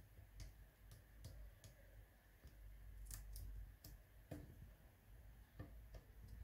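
Faint, irregular clicks of a house sparrow's beak pecking at food on a woven table mat, about a dozen taps spread unevenly.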